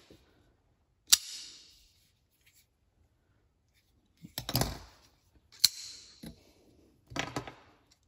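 Sharp metallic snaps of folding-knife blades, a Buck Deploy automatic and a Kershaw Link, springing open and locking. One comes about a second in and several more from the middle to near the end, each with a short ringing tail, with handling noise between.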